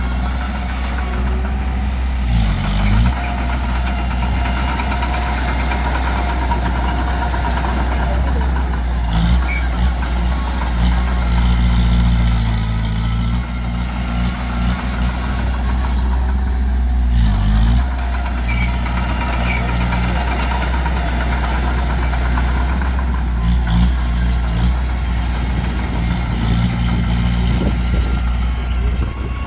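Heavy diesel engines of earthmoving machinery, a bulldozer and dump trucks, running with a steady low rumble. The engine note dips and recovers about three seconds in and again a little past halfway.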